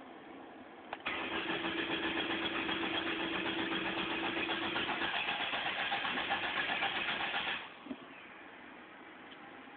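1998 Ford Escort ZX2's 2.0-litre Zetec four-cylinder cranking on the starter without catching: a click about a second in, then about six and a half seconds of fast, even cranking that stops abruptly, followed by a thump. The engine is failing to start, which the owner suspects is due to a bad Superchips ECU chip.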